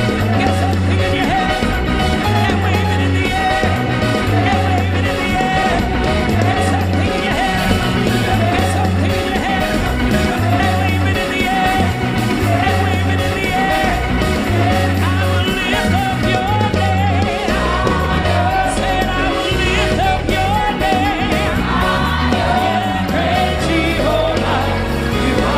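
Live gospel praise band and choir performing an upbeat Caribbean-style praise song: lead singers and backing vocals over a steady bass line and drums.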